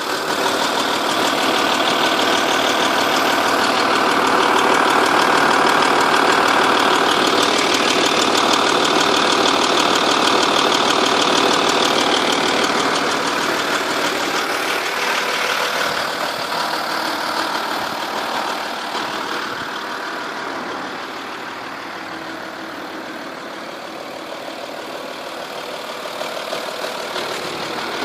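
Volkswagen-group 2.5 V6 TDI diesel engine idling with a rapid ticking; louder in the first half, quieter past the middle, and rising again near the end. The owner suspects a blown exhaust gasket at the rear of the engine on the passenger side.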